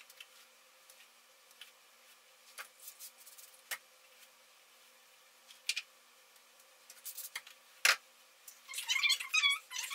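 Scattered light clicks and rustles of hair being handled and wound onto heatless curling rods, with a denser burst of rustling near the end.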